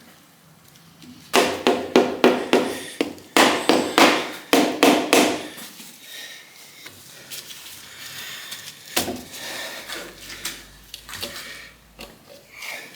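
Hammer blows on a stuck engine part that will not budge: two quick runs of sharp strikes, about a dozen in all, then lighter scattered knocks and clinks.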